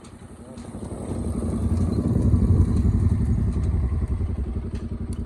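Motorcycle engine running, growing louder over the first two seconds and then holding steady.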